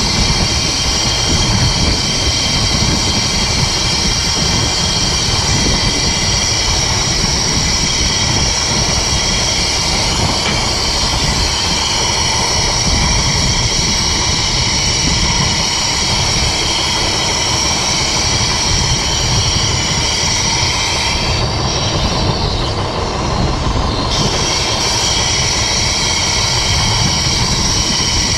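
Crawler dozer running, a steady high-pitched whine over a dense low engine rumble. The whine fades out for a couple of seconds about three-quarters of the way through, then comes back.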